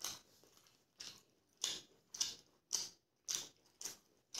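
Close-miked chewing of a chicken drumstick eaten by hand: short, sharp mouth sounds about twice a second.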